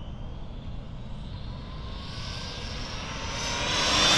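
RC speed-run car's electric motor and drivetrain running flat out on a single 3S LiPo: a high whine that rises in pitch and grows steadily louder as the car speeds toward the microphone, loudest near the end.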